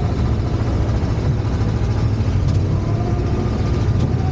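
Engine of a small track ride car running steadily at low speed, heard from the seat.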